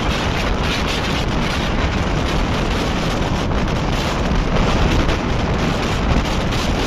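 Wind rushing over a microphone held out of a moving passenger train's window, mixed with the steady rumble of the coach running on the rails.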